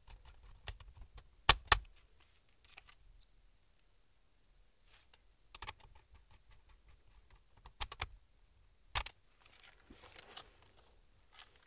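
Scattered clicks, taps and light knocks of hands and small parts on a laptop's plastic bottom case during disassembly, with sharper knocks about one and a half, eight and nine seconds in and a brief rustle near the end.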